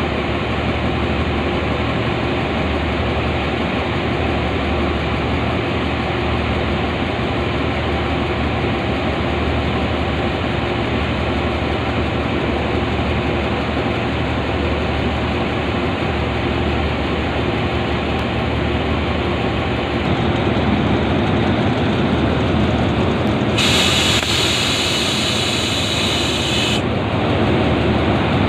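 Hitachi HID diesel-electric locomotive running at idle with a steady low engine hum, growing a little louder about two-thirds of the way through. Near the end a loud hiss of released air lasts about three seconds.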